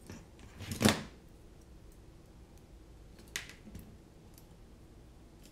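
Clicks and clatter from handling a small carbon-fibre drone frame and its screws with a hand tool: a brief loud clatter about a second in, then a single sharp click past the middle, with faint ticks between.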